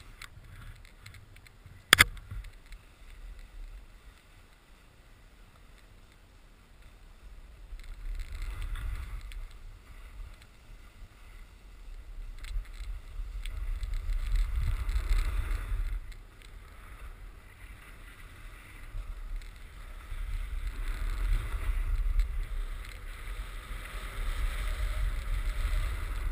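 Snowboard sliding and carving down a groomed ski run: the board scraping over the snow, with wind rumbling on the action camera's microphone. The sound swells and fades in several waves, and there is a single sharp knock about two seconds in.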